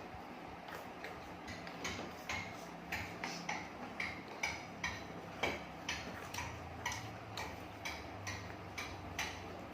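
Regular ticking, about two ticks a second, fading in over the first couple of seconds and then holding an even pace, over a faint low hum.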